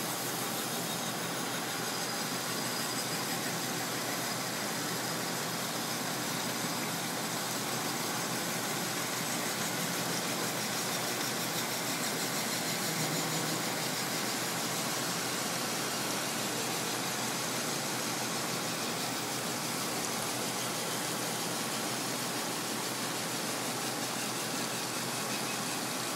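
Palmary PC-18S centerless grinder running, its abrasive wheel grinding a metal bar: a steady hissing grind over the machine's hum.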